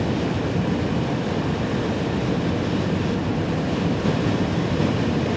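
Steady low rumble of a car driving at speed on an icy highway in a ground blizzard: tyre and wind noise heard from inside the car.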